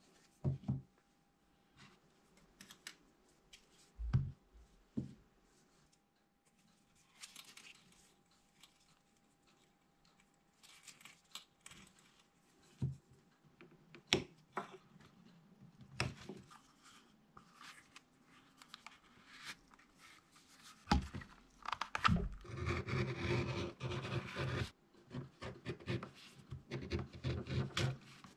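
Hands handling a stitched leather knife sheath: scattered light taps and clicks, then, about three-quarters of the way in, a dense run of quick scraping strokes as a small tool works along the sheath's edge.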